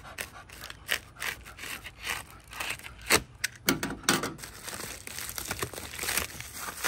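A box cutter slices along the taped seam of a cardboard box in a run of short, sharp scrapes and snaps. Then a plastic bubble mailer crinkles and rustles as it is lifted out of the box.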